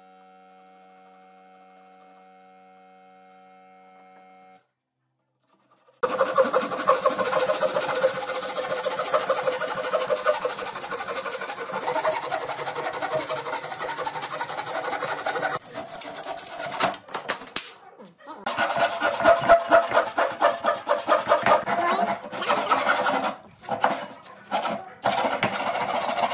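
A hand saw cutting through a thick hardwood slab in quick repeated strokes. The sawing starts about six seconds in and has a few short breaks. Before it there is a faint steady hum.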